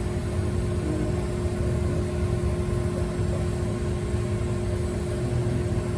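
Shop machinery running with a steady drone and a constant hum, unchanging throughout.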